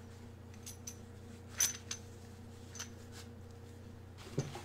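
A few light clicks and clinks, the loudest about a second and a half in, as metal challenge coins are handled and set down, over a steady low hum.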